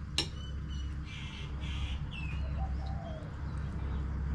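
Birds calling: a few short chirps and a brief low call that rises and falls. There is also a sharp click about a fifth of a second in, the loudest thing here, over a steady low hum.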